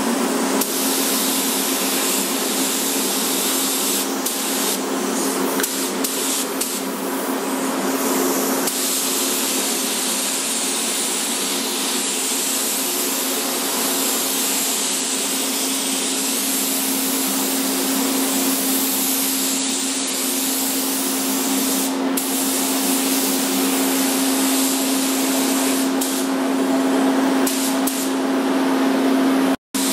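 Compressed-air paint spray gun hissing steadily while spraying paint, over a constant low hum typical of a paint booth's ventilation fan.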